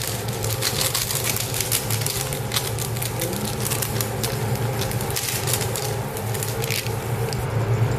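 Green beans and squash sizzling in a frying pan, with many irregular crackles and pops over a steady low hum.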